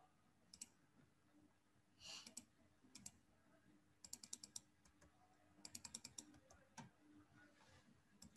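Faint computer keyboard keystrokes: a few single taps, then two quick runs of about five or six keys around four and six seconds in, as code is edited.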